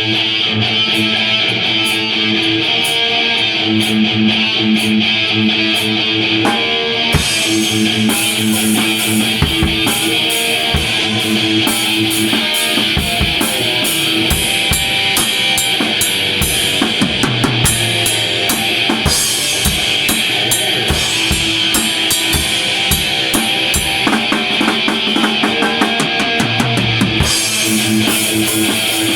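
Heavy metal played on distorted electric guitar over a drum kit, starting straight after a count-in. Cymbals join about seven seconds in, and the drumming becomes busier further on.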